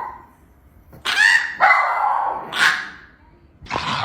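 A dog giving several short, pitched barks and yelps, with a quiet gap between a group about a second in and one more near the end.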